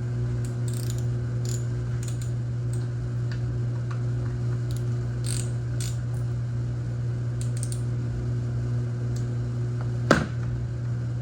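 Ratchet wrench clicking in short, scattered runs while loosening fasteners, with one sharp knock about ten seconds in, over a steady low hum.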